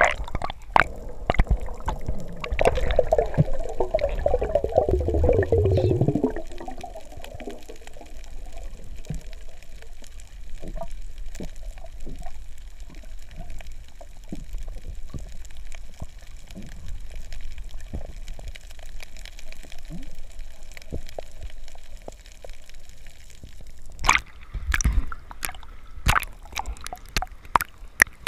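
Underwater sound picked up by a submerged action camera: bubbling and gurgling for a few seconds early on, then a faint steady crackle of scattered small clicks. Near the end come sharper splashes as the camera breaks the water's surface.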